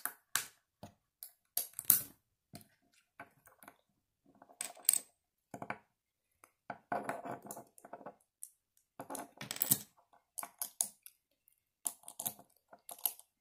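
Small plastic Lego bricks and Technic pieces being handled and pressed together, giving irregular sharp clicks and short clattering runs of clicks.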